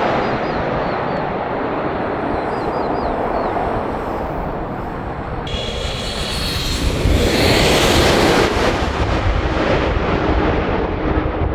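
Airplane passing low overhead on its landing approach: a steady engine rumble, with a high whine coming in about halfway through and the sound growing louder toward the end.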